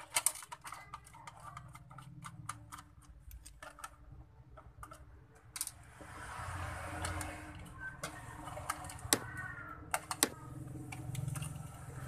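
A screwdriver clicking and scraping against the plastic housing of a gaming headset's ear cup as it is pried open. A quick run of small sharp clicks comes first, then rubbing and handling noise with a few louder clicks in the second half.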